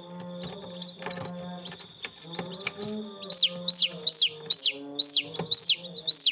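Newly hatched chicken chick peeping: a few faint chirps, then about halfway through seven loud peeps about two a second, each rising then falling in pitch.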